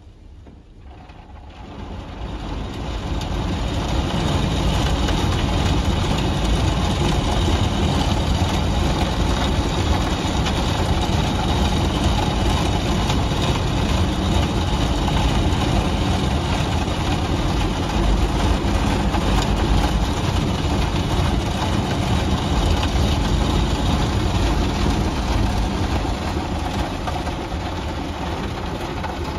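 WashTec SoftCare Prevo rollover car wash's drying blowers spinning up over the first few seconds and then blowing a steady rush of air over the car. They are heard from inside the car's cabin and ease off slightly near the end.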